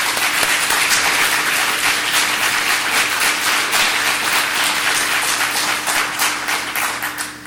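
Audience applauding, thinning to a few scattered claps and stopping near the end.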